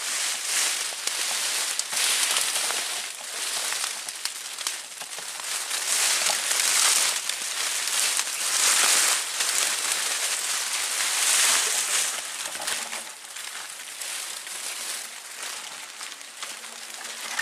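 Rustling and crackling of leaves and twigs as someone pushes on foot through dense undergrowth, swelling with each stride every couple of seconds.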